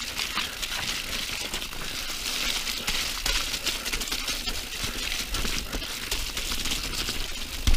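Mountain bike rolling down a muddy dirt downhill trail: a steady rush of tyre noise with a constant patter of small clicks and rattles from the bike.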